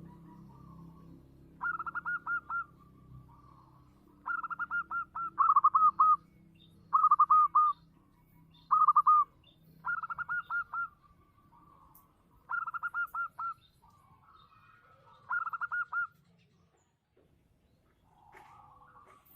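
Zebra dove (perkutut) cooing: about eight loud bouts of rapid, stuttering notes, each about a second long with short pauses between, stopping a few seconds before the end.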